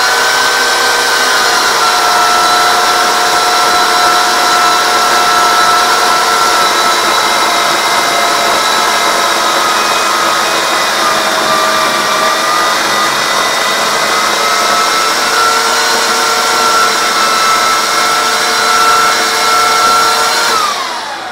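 Titan TTL758CHN 2000 W electric chainsaw starting up and cutting through a log: a steady high motor whine over the chain's noise, the pitch sagging slightly under load partway through. The cut goes easily, and the whine winds down near the end as the motor is switched off.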